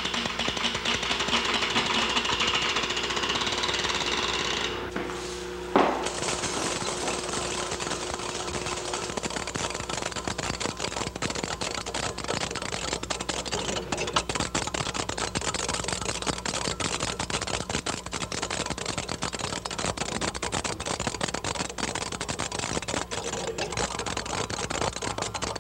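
Interactive electronic sound sculpture set off by its motion detector, putting out electronic sound: first a steady buzzy drone with a couple of held tones and hiss, then a sharp click about six seconds in, after which it changes to fast, dense clicking like a rattling machine.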